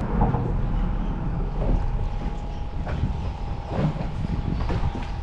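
Steady low rumble with a thin, constant whine running through it, as from a boat's motor, with a few faint voices now and then.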